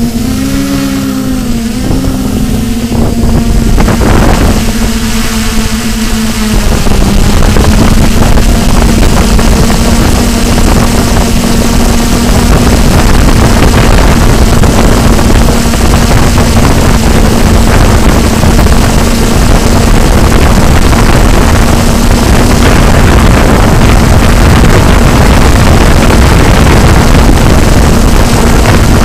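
Quadcopter's electric motors and propellers whining steadily, recorded from the drone's own onboard camera. Their pitch bends up and down over the first few seconds as the drone manoeuvres, then a louder steady rushing noise joins the drone from about seven seconds in.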